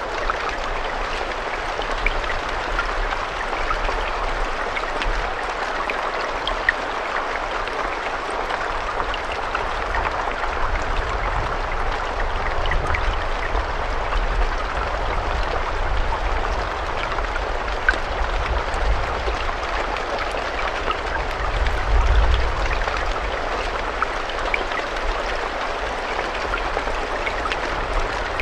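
Steady rainfall, a continuous hiss with scattered individual drops ticking through it over a low rumble that swells briefly about two-thirds of the way in.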